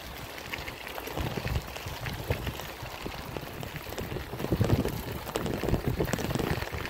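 Bicycle tyres rolling over a gravel path: a steady crackling crunch of small stones, with a low rumble that grows louder from about a second in.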